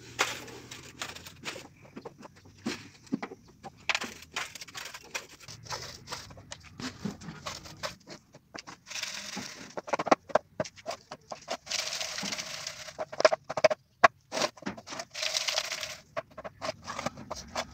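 A tin scoop knocking and scraping on plastic paver moulds as a wet, gritty mix of red colour, cement and crushed stone is poured in. In the second half, a filled mould is shaken by hand three times in bursts of about a second each, the gritty mix rattling and settling in the mould.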